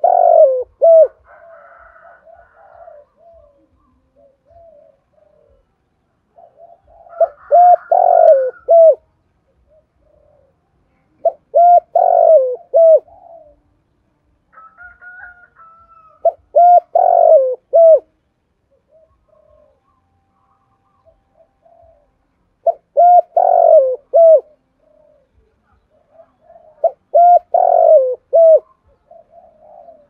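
Spotted dove cooing: a phrase of several short coos repeated six times, about every four to five seconds.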